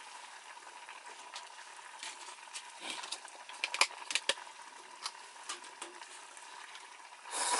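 A pot of noodle soup simmering on a camp stove, with a steady bubbling hiss and a few sharp clinks of a utensil in the middle; a louder rush of sizzling noise comes near the end.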